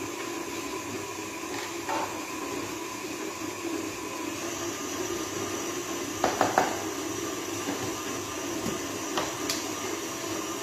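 Stand mixer running steadily as it beats butter and sugar, with a few light clatters of containers being handled on the counter about two seconds and six seconds in.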